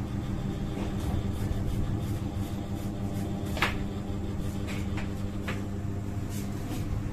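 Steady low hum, with a few faint clicks and scrapes from a straight razor and comb working through short hair.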